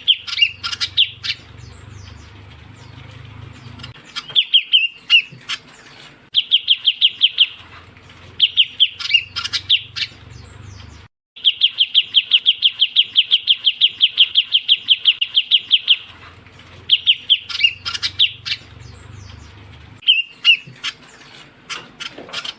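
Lure call of the ciu kunyit bird, a shrike-babbler: rapid trains of clear, evenly repeated notes, about five a second, with the longest run lasting roughly five seconds in the middle. Sharp higher chirps come between the trains, and a faint low hum sits under some phrases.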